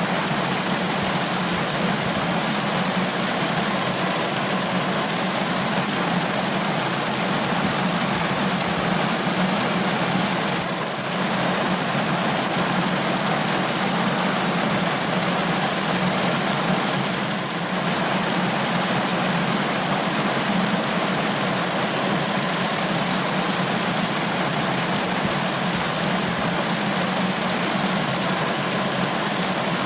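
Steady heavy rain drumming on a car roof, heard from inside the car, with two brief slight dips in level.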